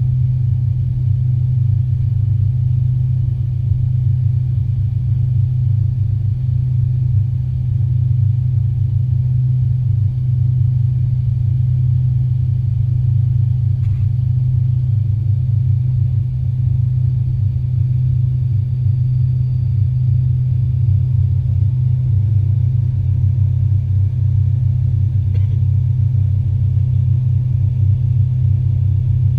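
Steady low drone of an Avro RJ85 cabin in flight, from its four Honeywell LF507 turbofan engines and the airflow over the fuselage.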